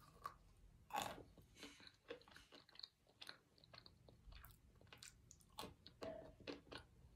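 Person chewing soft, slightly moist chunks of baked cornstarch brick close to the microphone: a quiet string of irregular short mouth clicks and soft crunches.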